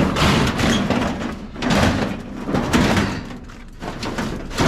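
A water heater's metal tank being flipped over and dragged, making several loud scrapes and bumps in a row.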